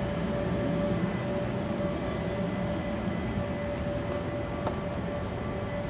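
Steady low rumble of city traffic with a constant hum.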